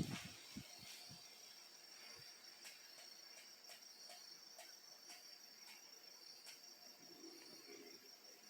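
Near silence after the wall fan stops, with a faint steady high-pitched whine and faint ticks about twice a second.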